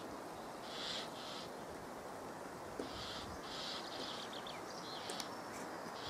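Great spotted woodpecker nestlings begging from the nest hole: short, hissing, buzzy bursts in runs, a couple around the first second and a longer run from about three seconds in, with a few thin high chirps near the end.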